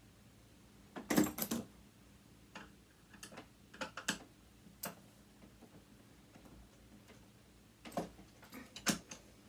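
Sharp clicks and knocks of tools and parts being handled while a sewing machine's motor is dismantled: a loud cluster about a second in, scattered single ticks after it, and another cluster near the end.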